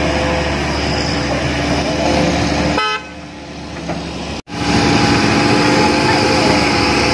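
Hitachi hydraulic excavator's diesel engine running steadily under work, with a steady whine held over the drone. The sound drops lower about three seconds in and cuts out for an instant before coming back at full level.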